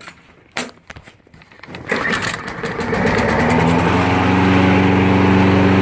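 A Briggs & Stratton 6.75 hp flathead engine on a push mower is pull-started after priming. It catches about two seconds in, picks up speed, and settles into steady running.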